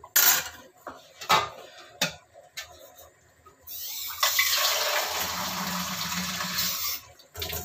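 Several knocks of a wooden spoon against a metal pot, then about three and a half seconds of water pouring steadily, the liquid added to the harira to cook the chickpeas.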